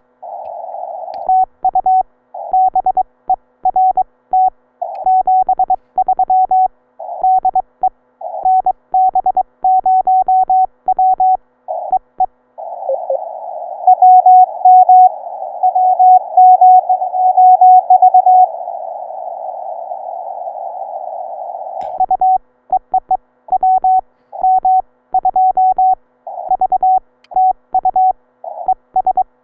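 Morse code (CW) from a Ten-Tec Eagle ham transceiver: a single tone of about 700 Hz keyed rapidly in dits and dahs. Through a long stretch near the middle, and in a few short spells, the code sits on a narrow band of receiver hiss from the 40-metre band.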